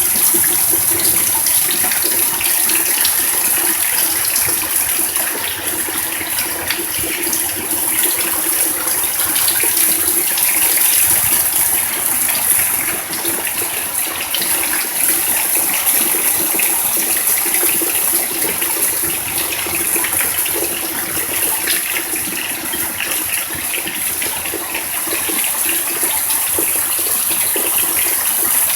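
Fairly heavy rain pouring down steadily: a dense, even hiss of falling drops.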